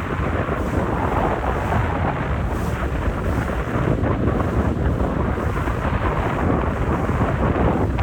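Wind rumbling over the microphone on a boat moving at speed, a steady low roar with the noise of the boat and water beneath it.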